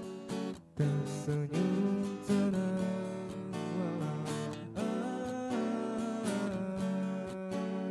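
Steel-string acoustic guitar strummed and picked through a slow chord progression, the instrumental introduction before the vocals come in, with a brief drop in loudness about three quarters of a second in.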